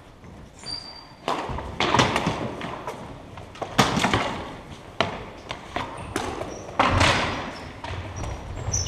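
Floor hockey play on a hardwood gym floor: starting about a second in, a string of sharp clacks and thuds of plastic hockey sticks and ball striking the floor, echoing in the large hall, with short high sneaker squeaks.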